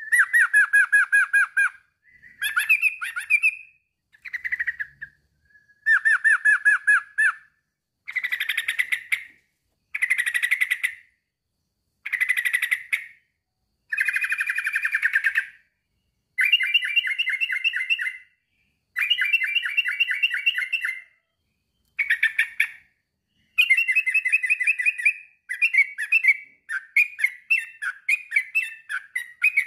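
Male sooty-headed bulbul (trucukan) singing a rival-challenging song: phrases of rapid, bubbling notes, each lasting one to two seconds, repeated with short pauses between them. Near the end the phrases break up into shorter, choppier notes.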